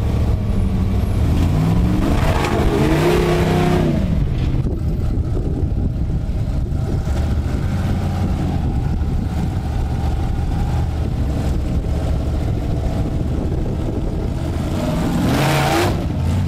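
Off-road rock crawler's engine working under load as it climbs a rock ledge, with the revs rising and falling twice, about two seconds in and again near the end.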